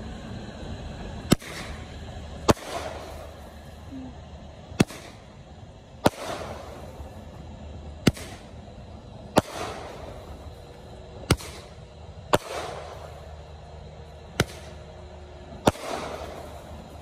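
Aerial fireworks shots going off one after another: five pairs of sharp bangs about three seconds apart. In each pair, the shell's launch thump is followed about a second later by its burst bang and a fading crackle.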